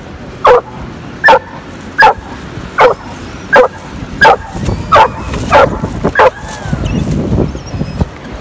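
A dog barking repeatedly in short, sharp barks, about one every three-quarters of a second, nine in all, stopping a little past six seconds in.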